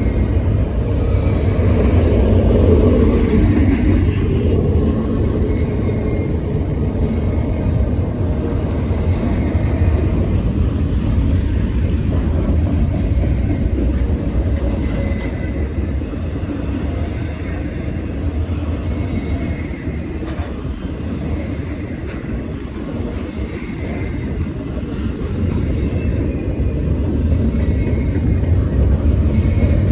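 Freight cars of an intermodal train rolling past: a steady low rumble of steel wheels on rail that eases a little about two-thirds of the way through and swells again near the end.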